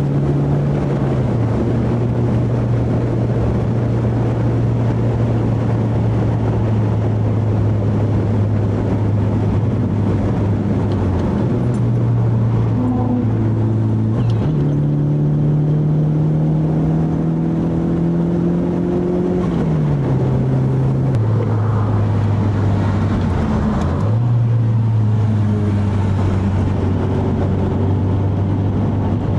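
Car engine drone heard from inside a moving car, holding steady revs for several seconds at a time, its pitch stepping down and up a few times as the driver changes gear and throttle.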